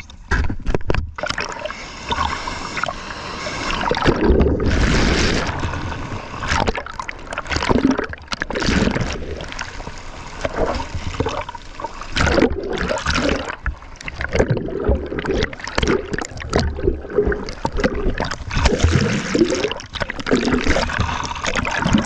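Rough surf water splashing and gurgling in irregular surges, with sharp splashes scattered through.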